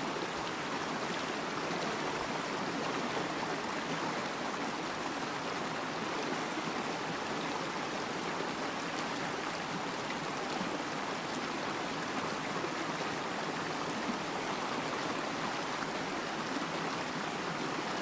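Steady rush of water flowing in a waterfall stream.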